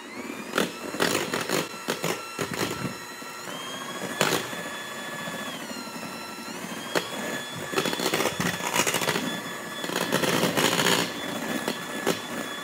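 Electric hand mixer running fast, beating egg whites from foamy toward soft peaks in a stainless steel bowl. Its motor whine rises in pitch at the start and dips briefly around the middle before coming back up. The beaters clatter against the side of the bowl again and again.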